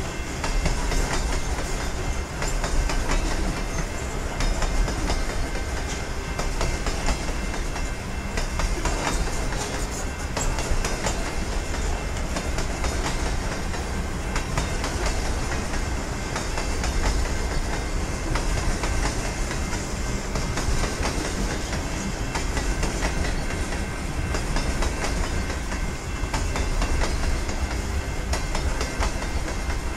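Canadian National freight train's hopper cars rolling steadily past: a continuous low rumble of steel wheels on rail, with clicking over the rail joints.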